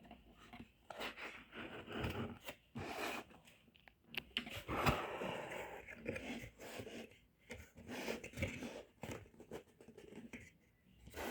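Packaging being opened and handled: irregular rustling, tearing and scraping with short clicks.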